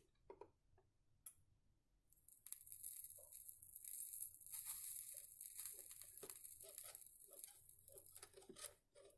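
Solder paste sizzling and crackling under a soldering iron on a power strip's bus bar. A faint high hiss with small crackles starts about two seconds in and dies away near the end.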